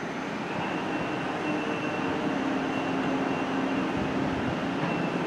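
Container freight train's wagons rolling past on the rails: a steady rumble with faint, thin high and low tones running through it.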